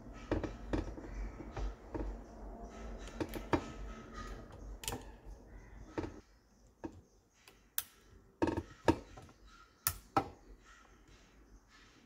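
Irregular clicks and light knocks of metal and plastic parts being handled on a washing machine's gearbox mounting plate, with a few sharper clicks from about eight to ten seconds in.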